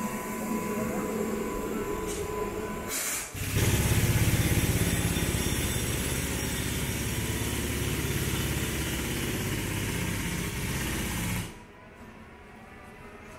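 Street noise, then a small engine running loudly close by for about eight seconds with a low, rapid pulsing, cutting off abruptly near the end.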